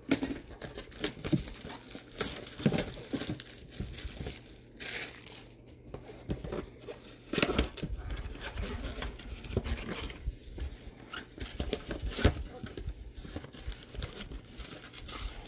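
Cardboard of a trading-card mega box and the card-pack wrappers inside being handled and torn open: irregular rustling, crinkling and tearing with sharp snaps and taps, the loudest about halfway through and again near the end.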